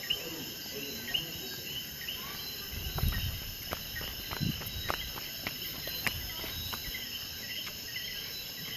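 Scattered sharp pops and crackles of fireworks, with a low boom about three seconds in, over a steady high chirring of night insects.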